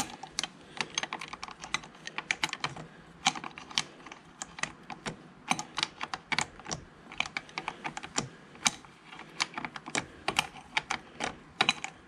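Socket ratchet clicking as it is worked in short strokes to back out a brake caliper bolt: runs of quick, sharp, irregular clicks, several a second.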